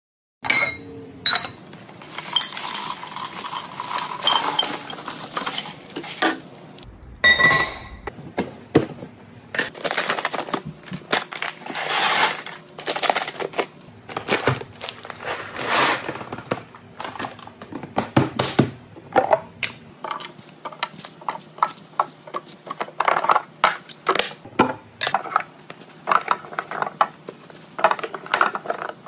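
A run of clicks, clinks and clatters of plastic and acrylic containers being handled, filled and set down on a counter, with dry cat kibble poured into a plastic dispenser partway through.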